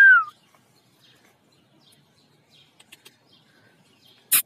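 A person's whistle to call a dog: the last of a few short whistled notes, gliding down in pitch, right at the start. A short, sharp crack near the end is the loudest thing.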